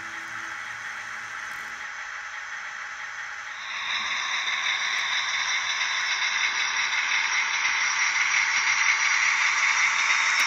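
Model trains running on layout track: a steady rattling whir of small metal wheels on rails and a small electric motor. It jumps louder about four seconds in and keeps building as a model diesel shunter draws near.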